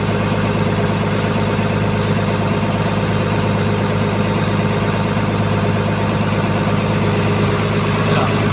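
A boat's engine running steadily, heard from on board as a constant low hum.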